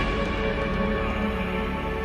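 Background music: held tones over a low sustained bass, slowly getting quieter.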